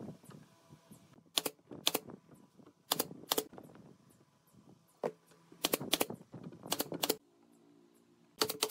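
Nail gun firing brads into pine slats: loud, sharp shots in pairs and small groups, about a dozen in all. A brief low hum comes between the last groups.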